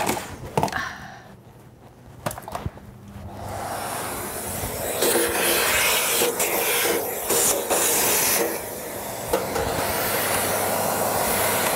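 Canister vacuum cleaner switched on about three and a half seconds in, then running steadily as its nozzle sucks ash and cobwebs out of a small metal barbecue tray. A few knocks of handling come before it starts.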